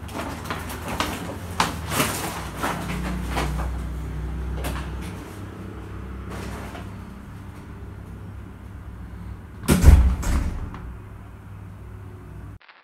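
A few knocks and steps as someone leaves, then a heavy front door swinging shut and closing with one loud thud just under ten seconds in.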